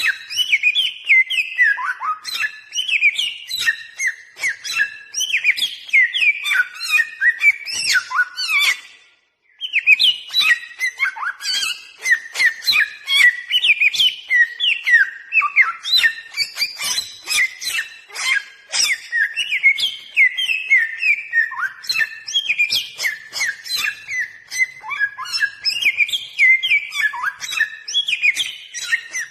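Bare-throated whistler (samyong) singing a rapid, unbroken string of varied slurred whistles that glide up and down, with one brief pause about nine seconds in.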